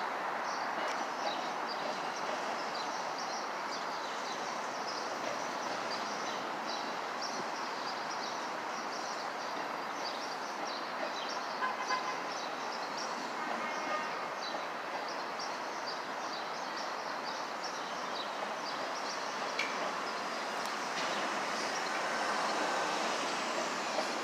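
Steady rolling noise of a slow Union Pacific manifest freight train passing, with many short high chirps scattered over it.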